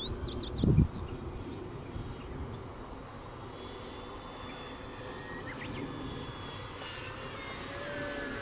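Electric motor and propeller of a radio-controlled model F2G Super Corsair in flight, a steady whine that grows louder near the end as the plane comes closer.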